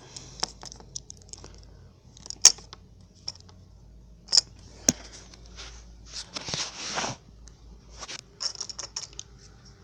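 Small plastic toy parts being handled: scattered sharp clicks and ticks, a short rustle about two-thirds of the way through, then a run of quick small clicks near the end.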